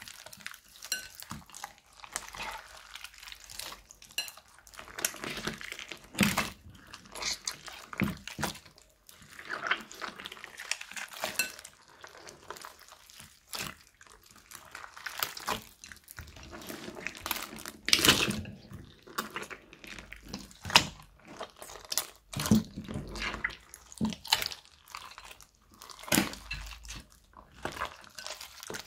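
Hands squeezing and kneading a wet mass of slime packed with beads and mixed with lip gloss and water: irregular sticky squelches with crisp clicks and crackles.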